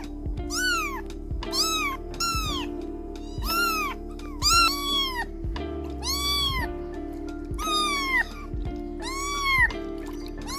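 Kittens meowing over and over in high-pitched cries, each one rising then falling, about one a second, with background music underneath.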